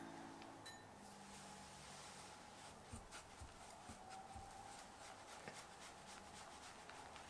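Faint scratching of a wire whisk stirring dry flour and cornmeal in a glass bowl, with light ticks, starting about three seconds in.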